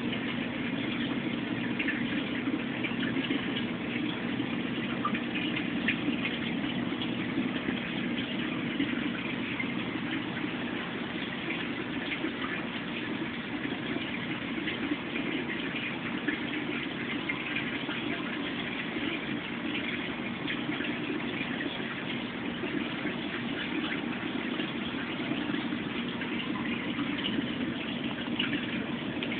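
Water circulation of a 180-gallon saltwater reef aquarium running: a steady rush of flowing water.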